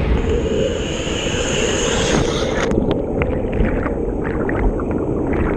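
Water rushing and churning with a heavy low rumble; about two and a half seconds in it turns muffled, as if heard underwater, with short bubbling sounds.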